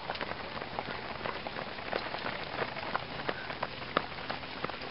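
Rain pattering: many irregular light taps over a steady hiss.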